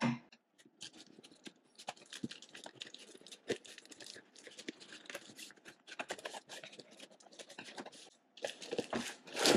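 Packaging being handled: irregular crinkling and rustling with small clicks and taps, growing louder near the end.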